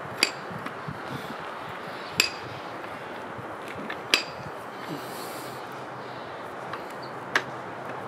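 Four sharp metallic clinks, spaced a second or two apart, from a jackhammer's steel chisel knocking against broken concrete, over a steady background noise.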